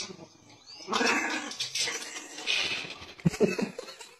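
Small dog vocalizing: a rough, noisy stretch in the middle, then a few short, sharp calls near the end.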